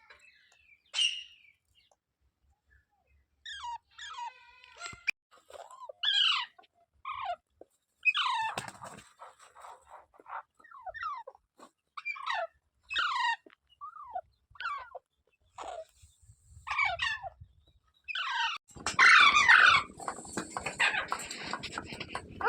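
Pet green parrot calling: a string of short, sharp calls that drop in pitch, spaced out one to a few at a time. Near the end the calling turns louder, harsher and more continuous.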